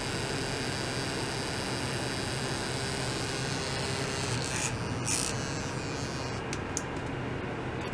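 Steady electrical hum and hiss from the running ultrasonic test setup, with faint high-pitched steady tones that fade out about three seconds in. A couple of brief rustling noises just past the middle and two short clicks a little later.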